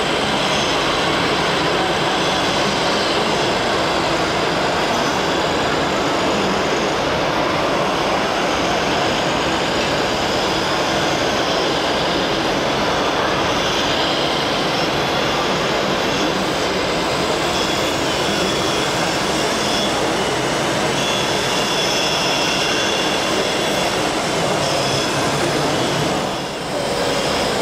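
Steady din of a busy indoor exhibition hall mixed with the running of radio-controlled model trucks and construction machines, dipping briefly near the end.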